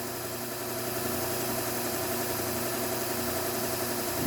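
Electric motor of a Bucktool slow-speed sharpening machine running with a steady hum.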